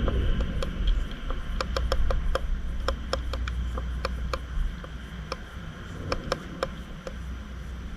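Irregular sharp clicks and ticks, several a second in places, over a steady low rumble.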